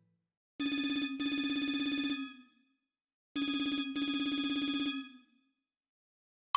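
Remastered Nokia 3220 mobile phone ringtone in a telephone-ring style: a rapidly pulsing pitched ring sounding twice, each ring about a second and a half long with a brief break near its start.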